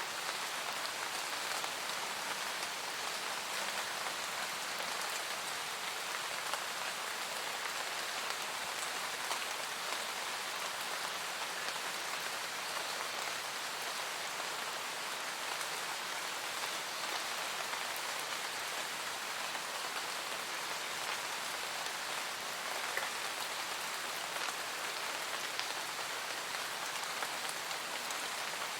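Steady rain falling in a forest, pattering on leaves and the ground with countless fine drop ticks, with no thunder.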